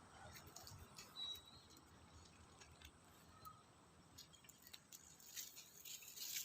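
Faint outdoor nature ambience: a soft hiss with scattered small clicks and ticks, growing more frequent near the end, and two brief chirps, a high one about a second in and a lower one about three and a half seconds in.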